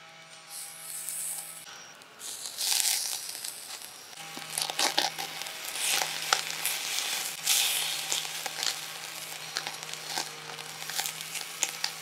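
Meat sizzling as pieces are laid on a hot charcoal grill, in hissing bursts that settle into a steadier sizzle about four seconds in, with light clicks and rustling.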